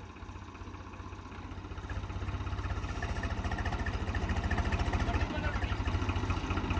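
Diesel engine running with a fast, even low chug, growing louder from about two seconds in.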